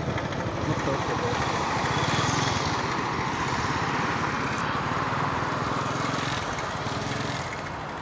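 Road traffic: motor vehicle engine and tyre noise from cars passing on the paved road. It swells over the first few seconds and fades toward the end.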